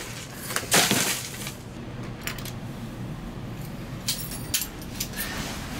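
Something dropped into a plastic-lined trash can with a short clatter about a second in, followed by a few light metallic clicks and jingles near the end.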